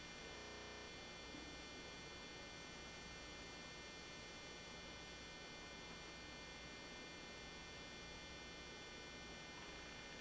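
Faint steady electrical hum and hiss, with several thin high-pitched whines held at constant pitch.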